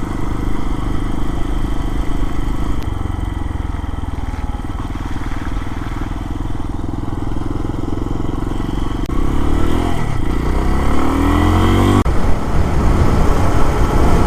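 Lifan KPX250's single-cylinder four-stroke engine running while the motorcycle is ridden, heard from on the bike. Near the end the engine pitch climbs as it accelerates, then breaks off sharply with a gear change about twelve seconds in.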